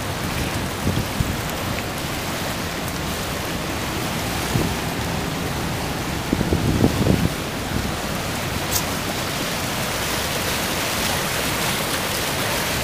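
Flood-stage river water rushing and churning past a hydro dam, a steady wash of noise. A few low bumps on the microphone come about six to seven seconds in.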